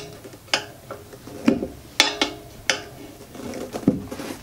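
Metal tire irons clinking against a spoked motorcycle wheel rim as the tire bead is levered on: a handful of separate sharp metallic clinks, some with a short ring.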